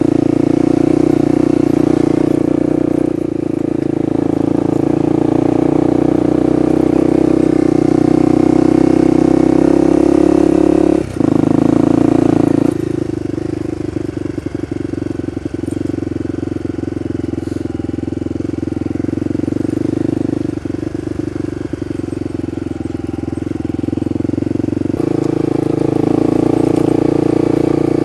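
Honda dual-sport motorcycle engine running under way on a rough trail, pulling steadily. About eleven seconds in the throttle drops off and it runs quieter, with scattered clicks and clatter, then picks up again near the end.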